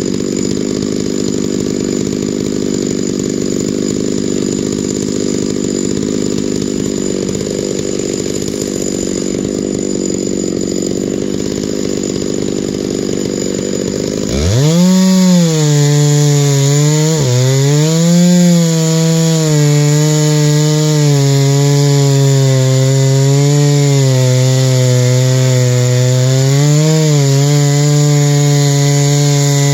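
Chainsaw mill ripping a white spruce log lengthwise, the saw engine running hard under load. About halfway through, the sound changes suddenly to a clear, loud engine note whose pitch wavers up and down as the saw works through the cut.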